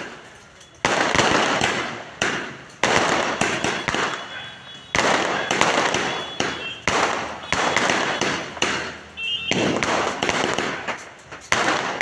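A 240-shot aerial fireworks cake firing shells that burst overhead in quick succession, roughly one a second. Each burst is a sharp bang followed by a crackling fizz that dies away.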